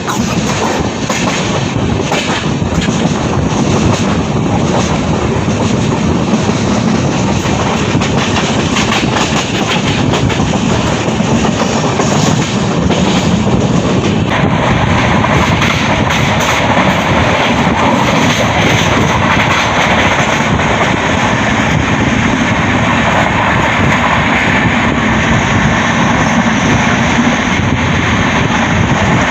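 Pandian Express passenger train running along the track: a steady rumble and rattle of the coaches' wheels on the rails. The noise turns brighter and a little louder about halfway through.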